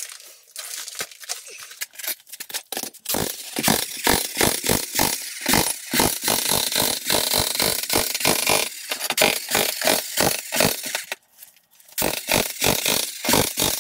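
Electric jackhammer breaking up a concrete floor slab with its chisel bit, a fast, steady run of hammer blows. The blows stop for about a second near the end, then start again.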